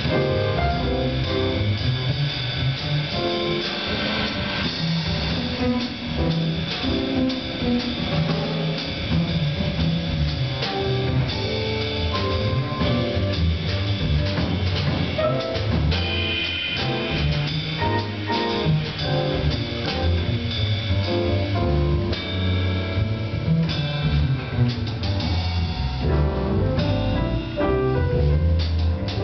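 Small jazz combo playing live: electric guitar leading over piano, upright bass and drum kit.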